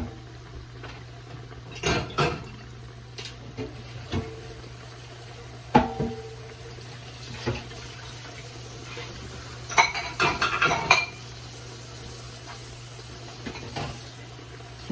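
Kitchen clatter of pots, dishes and metal utensils: a handful of separate knocks and clinks, then a quick run of clinks about ten seconds in, over a steady low hum.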